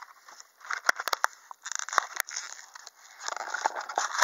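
Hot Wheels blister pack being torn open: plastic crackling and cardboard tearing in a few short bursts, with several sharp clicks.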